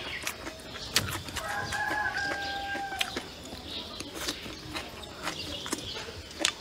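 A rooster crows once, a single held call lasting about a second and a half. Close eating sounds run over it: chewing and sharp clicks.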